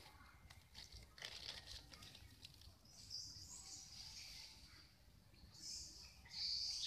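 Faint outdoor ambience: light rustling and clicking in the first couple of seconds, then high-pitched chirring from wild creatures in the background, louder near the end.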